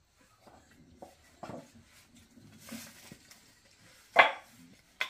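Faint scuffs and small knocks, then about four seconds in a sharp wooden clack, the loudest sound, and a second shorter one near the end: small pieces of scrap wood being set down and stacked by hand on a board.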